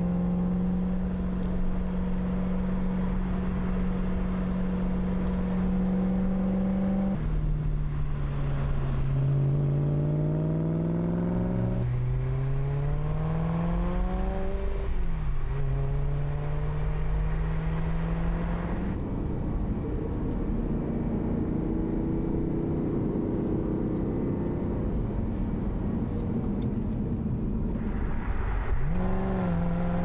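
BMW M performance car engine driving past and accelerating: a steady note for about seven seconds, then revs climbing through several gears, the pitch dropping sharply at each upshift, with a dip and a fresh climb near the end.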